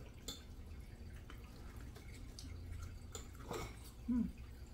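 A few faint, sparse clicks of a knife and fork on a plate as food is cut, with a short hummed vocal sound about four seconds in.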